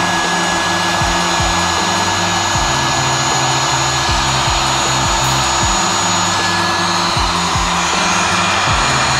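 Electric heat gun blowing steadily as it shrinks heat-shrink sleeving over the controller's phase-wire connections, with a steady whine over its rushing air and background music with a beat underneath.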